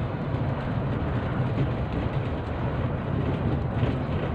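Steady engine and road noise inside the cab of a moving bus, a low drone with no breaks.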